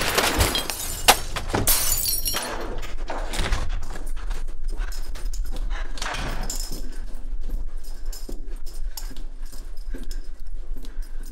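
A series of crashes, knocks and clattering impacts, like things being smashed, with a sharp crack about a second in, over a low steady hum.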